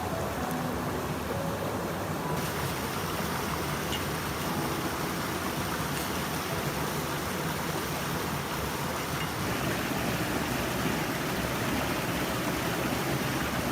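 Steady rushing noise of running water, with faint music fading out in the first two seconds.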